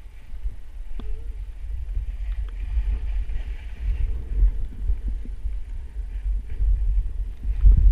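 Wind buffeting the microphone of a body-mounted camera on a skier moving downhill: a low, gusting rumble that swells and drops unevenly, over a faint hiss of skis sliding on snow.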